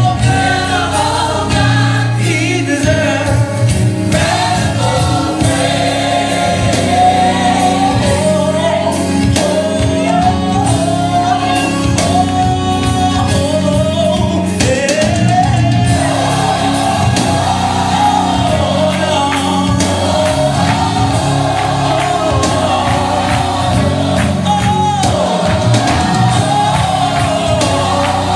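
Gospel music: a choir singing over continuous instrumental accompaniment, the song backing a praise dance.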